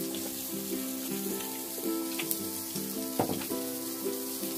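Pork sizzling on a moo kratha grill pan, a steady hiss. A melody of background music plays over it, with a couple of short clicks about two and three seconds in.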